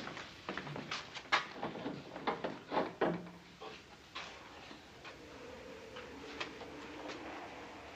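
Footsteps on a wooden floor, a handful of uneven knocks over the first three seconds or so, then quieter as a door is eased open.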